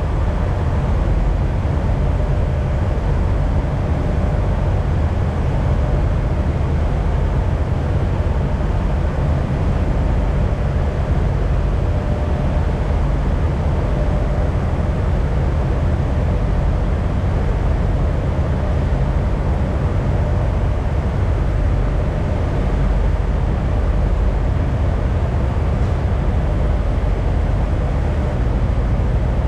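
Peterbilt semi truck's diesel engine running steadily with an even low drone and a faint steady whine above it.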